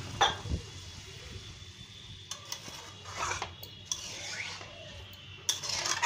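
A metal spoon stirring potato and drumstick curry in a pan, just after water has been added for the gravy: a sharp clink of spoon on pan near the start, then scraping strokes against the pan's side.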